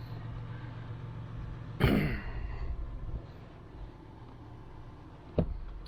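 A man clearing his throat once, about two seconds in, over a steady low hum, with a single sharp click near the end.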